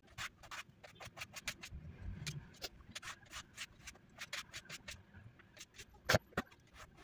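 Knife chopping peeled raw potatoes: a run of quick, uneven taps, with one louder knock about six seconds in.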